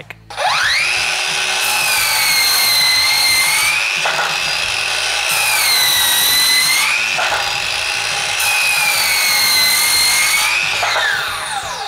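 Ryobi 18V ONE+ P508 brushless 7-1/4 in. circular saw with a 24-tooth Diablo blade spinning up about half a second in and making three rip cuts through wood. Each cut pulls the motor's whine down in pitch and adds a rasping cutting noise. Near the end the trigger is released and the saw spins down with a falling whine.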